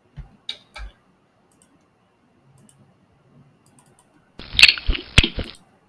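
A few soft mouse clicks, then about a second of a sound effect playing back: a cluster of sharp cracks and knocks, sounding thin and dull at the top as if from a compressed sample.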